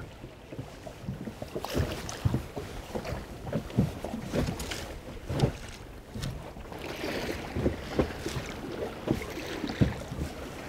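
Small waves slapping against the hull of a small rigid-inflatable boat in irregular knocks, with wind on the microphone.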